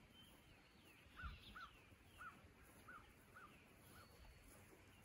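Faint bird calls: one bird repeats a short, clear note about seven times, roughly two a second, while other birds chirp faintly higher up.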